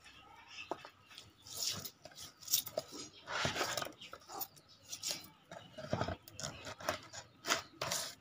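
Hands rubbing and squishing chopped chili-garlic paste into a whole raw fish in a plastic basin: irregular wet rubbing and squelching, with light knocks as the fish is turned against the basin.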